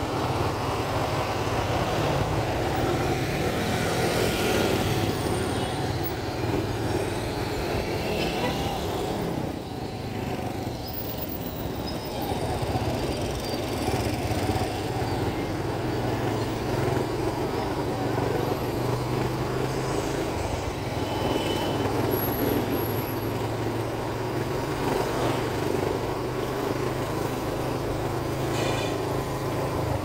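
Motorcycle engine of a Philippine tricycle running steadily while under way, with the steady low hum of the ride and passing street traffic around it.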